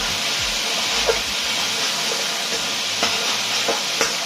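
Pork, peppers and onions sizzling steadily in a hot wok, with a few light clicks about a second in and again near the end.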